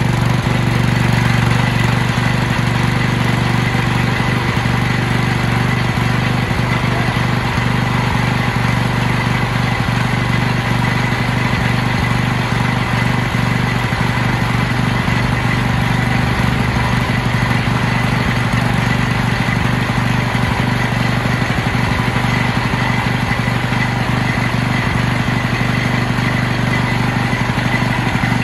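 Swapped-in Briggs & Stratton 205cc four-stroke engine on a Jacobsen Greens Mower 22 reel mower, just started and running steadily at a constant speed.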